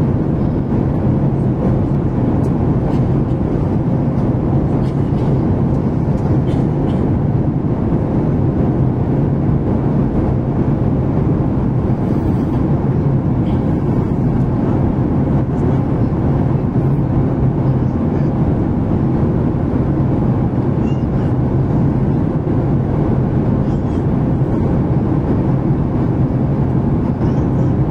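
Steady jet cabin drone heard inside a Boeing 737 MAX airliner in flight: the CFM LEAP-1B turbofan engines' low hum under the rush of air past the fuselage, holding an even level throughout.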